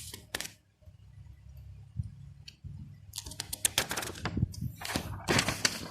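A low steady hum, then a quick, irregular run of clicks and crackles starting about three seconds in.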